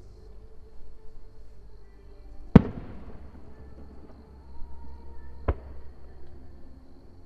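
Two aerial firework shells bursting, about three seconds apart: sharp bangs, the first louder and trailing off in a long rumbling echo.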